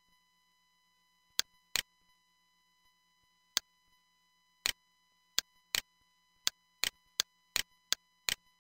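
Computer mouse button clicking, about a dozen sharp single clicks at irregular spacing, coming quicker toward the end, under a faint steady hum.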